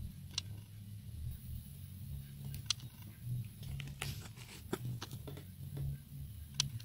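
Two kittens play-fighting on a fabric sofa: scattered sharp clicks and light scuffs of paws and claws on the upholstery, about five of them, over a steady low rumble.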